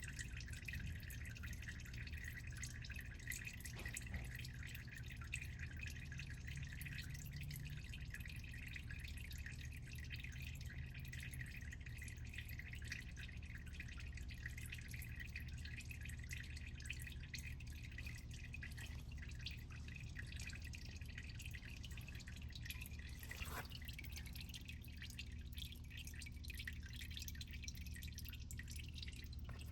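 Engine oil dripping from the underside of the car, a run of faint scattered drips over a steady low hum.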